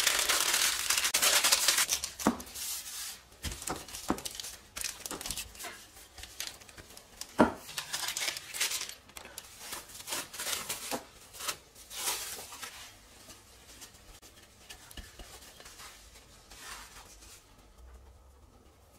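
Baking paper rustling and crinkling as it is folded for the first couple of seconds, then scattered sharp crackles of plastic cling film being handled and peeled off a block of dough, dying down to faint handling sounds over the last few seconds.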